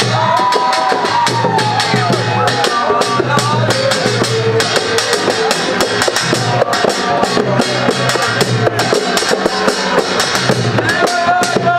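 A group of hand-beaten frame drums and larger drums played together in a fast, dense rhythm, with many overlapping strikes.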